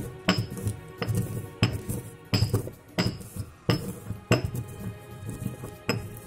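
Pestle pounding roasted peanuts in a mortar, a sharp knock with a short clink about every two-thirds of a second, as the nuts are crushed toward a flour. Background music plays underneath.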